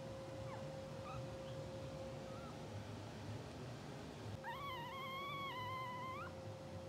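Newborn English bulldog puppy giving a couple of faint short squeaks, then one longer wavering high-pitched cry of about two seconds that rises at its end. A steady faint tone hums underneath.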